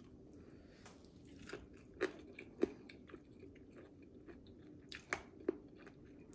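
A person chewing and biting food close to the microphone: faint, wet mouth sounds broken by a handful of short, sharp clicks and crunches.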